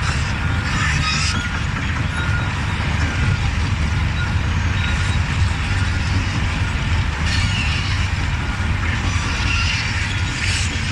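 Large crawler bulldozer at work in gravel: its diesel engine runs steadily under load while the steel tracks clank, with a few short bursts of higher-pitched scraping noise.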